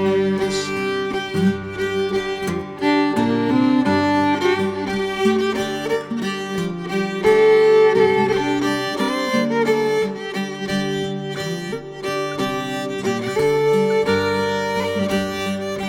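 Fiddle playing the melody of a traditional English folk song in an instrumental break between sung verses, with accompaniment underneath.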